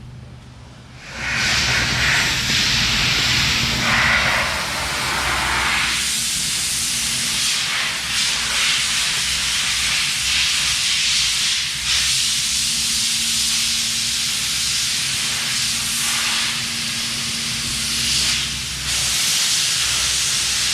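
A loud, steady hiss of a pressurised jet starts about a second in and runs on, with a few brief dips.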